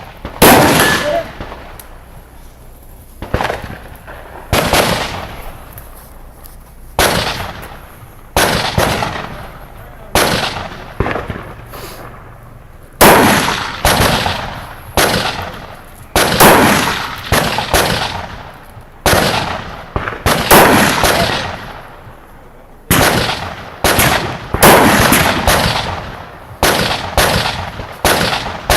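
Rifle shots fired in a long, irregular string, each sharp crack trailing off in an echo of about a second. The shots come more closely together, sometimes only half a second apart, in the second half.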